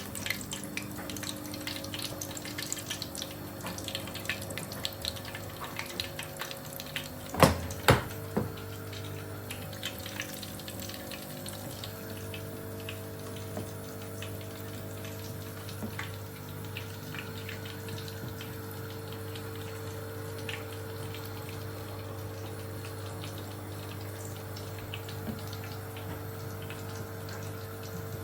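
Oil sizzling and crackling steadily in a pan of frying food, over a steady low hum. Two loud knocks come close together about seven and a half seconds in.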